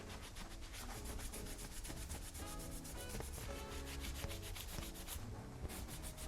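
A cloth wiping a cupboard shelf in quick, even rubbing strokes, which pause briefly near the end, over soft background music.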